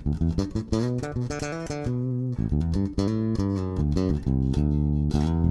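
Ansir electric bass played solo, a quick run of plucked notes that ends on a held low note near the end. The tone knob is rolled back to about 75 percent, taking a little off the highs.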